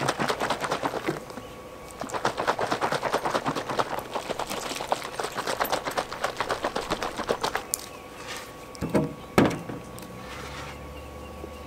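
A metal can of two-part boat bottom coating shaken hard by hand: a fast rattling clatter in two bouts with a short break, stopping about eight seconds in. Then two thumps as a container is set down on the boat's metal hull.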